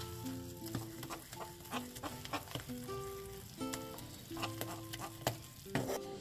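Metal spoon stirring and scraping a thick cooked toffee of butter, brown sugar and condensed milk in a non-stick frying pan, with scattered sharp clicks as the spoon knocks the pan. Light background music plays underneath.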